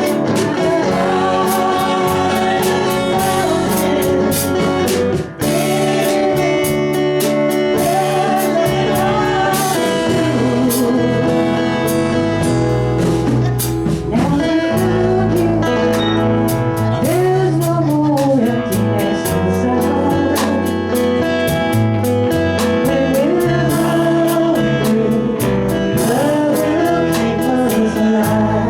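A band playing live: a singer over guitar, with a steady beat.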